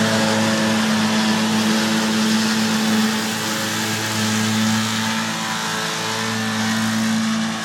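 Farm tractor engine running steadily under load while mowing grass, a constant drone with a broad mechanical hiss of the mower over it.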